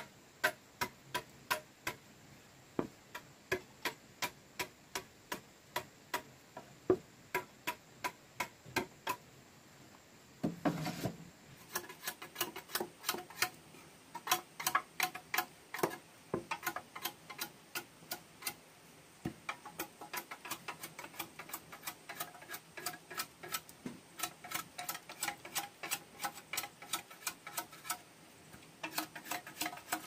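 Machete chopping into a thick green bamboo pole held upright on a wooden block, cutting a ring through it: a steady run of sharp knocks, about two or three a second. A short rustle comes about eleven seconds in, and the strikes come thicker after it.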